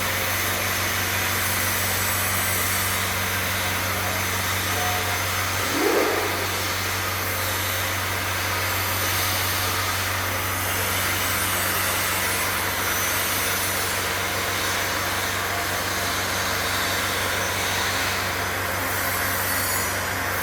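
Crystal ice machine running: a steady electric hum under an even whirring noise, with a brief sweeping sound about six seconds in.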